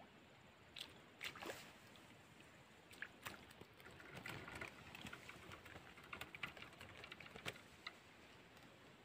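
Faint scattered clicks and rustling from fishing gear being handled at the rods, denser in the middle, over an otherwise near-silent night background.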